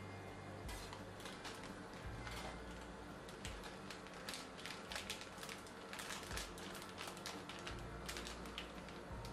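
Plastic packet wrapper crinkling and crackling as it is handled and squeezed, in many small irregular clicks, busiest in the second half.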